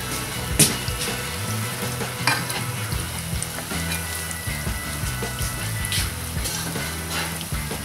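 Quark-and-potato patties (Quarkkeulchen) frying in hot oil in a pan, sizzling steadily. A few sharp clicks of a spatula against the pan come about half a second in, after about two seconds, and about six seconds in.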